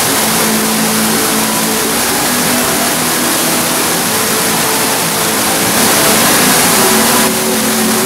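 Artificial waterfall pouring down a wall into its pool: a loud, steady rush of falling water that swells briefly about six seconds in.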